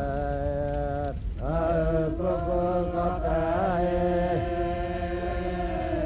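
Voices chanting in long held notes. The chant breaks off briefly about a second in, then carries on with a few shifts in pitch.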